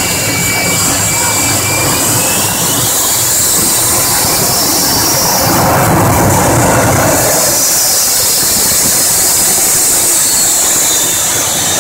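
Jet dragster's turbine engine running with a steady whine and hiss. Midway through, a car's tyres squeal as it spins in a burnout, and the noise swells for a couple of seconds.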